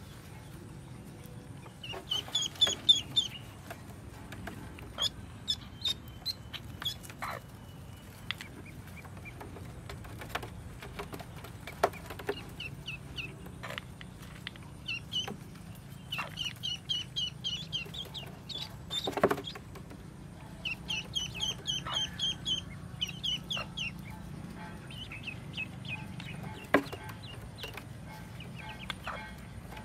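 Newly hatched ducklings peeping in several runs of quick, high peeps, with the occasional lower cluck from the broody hen sitting on them.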